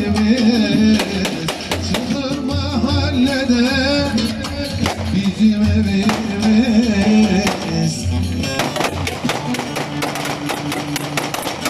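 Loud live amplified folk dance music with a wavering sung melody over a steady bass beat. A quick run of sharp percussive hits comes in during the last few seconds.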